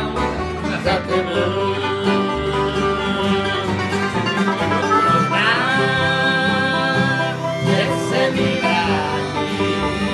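Bluegrass band playing live: fiddle, banjo, acoustic guitar and upright double bass, with men's voices singing.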